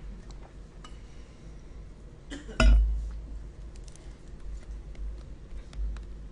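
Scattered light clicks and taps, with one louder sharp clink that rings briefly about two and a half seconds in, over a steady low hum.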